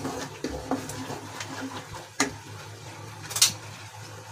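Spatula stirring and scraping thick masala paste around a nonstick kadai, with a sharp knock about two seconds in and a louder scrape past three seconds.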